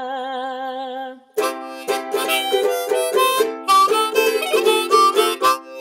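Ukulele strummed with a man singing along. A long sung note with vibrato ends about a second in, and after a short break the strumming comes back quickly with the melody over it.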